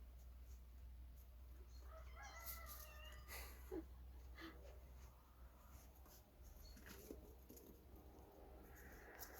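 An animal's short pitched call, about a second long, about two seconds in, followed by a few scattered clicks over a steady low hum.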